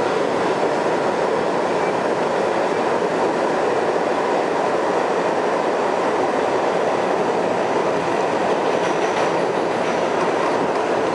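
R62A New York City subway car running at steady speed through a station without stopping, heard from inside the car: a constant rumble of steel wheels on the rails and the car's running gear.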